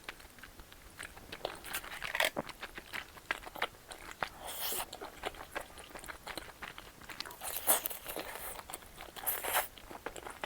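A person eating close to the microphone: chewing with crunches and small wet mouth clicks, with a few louder bites spread through.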